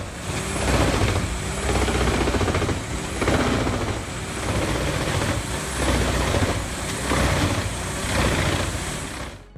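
Vermeer WC2500TX whole tree chipper running under heavy load, its Cummins QSX15 diesel engine laboring while the machine chews through wood. The grinding rises and falls in loud surges about once a second.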